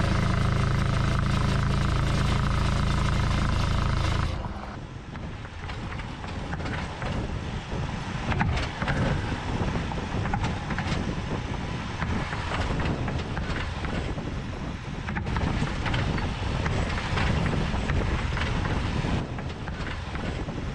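A Ford Bronco prototype driving. First a steady drone heard from under the body. About four seconds in, the sound changes sharply to a rougher, noisier rush of the truck going by outside, with wind on the microphone and scattered knocks.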